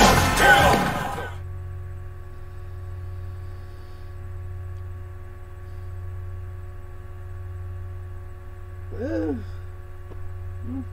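A hip-hop track cuts off about a second in, leaving a steady electrical mains hum. Near the end a man makes one short wordless vocal sound.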